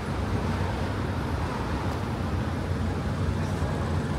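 Steady city street traffic: cars driving through an intersection close by, with a continuous low rumble of engines and tyres.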